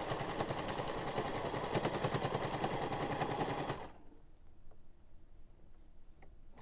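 Electric sewing machine running at speed, its needle stitching in a rapid, even chatter while re-sewing a gap of missing stitches along a waistband; it stops about four seconds in, leaving only a few faint ticks.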